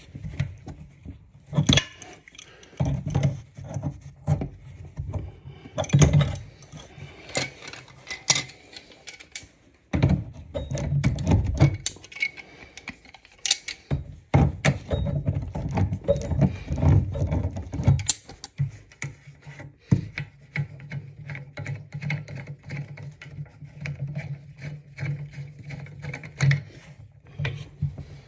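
An adjustable wrench clinks and scrapes on the brass compression angle stop and the supply-line nuts under a toilet tank, with irregular clicks, knocks and rubbing as the fittings are handled.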